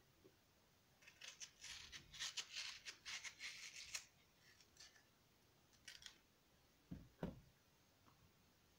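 Kitchen knife slicing through a mango: a run of quick scraping cutting strokes for about three seconds, then a couple more scrapes and two soft knocks on a wooden cutting board near the end.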